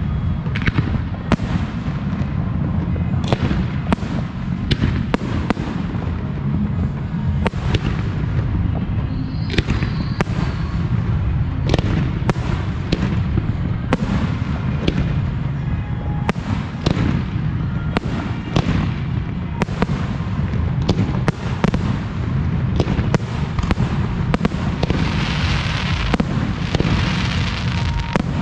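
Aerial fireworks display firing steadily: a rapid run of shell bursts and sharp reports over a constant low rumble, with a dense stretch of crackling near the end.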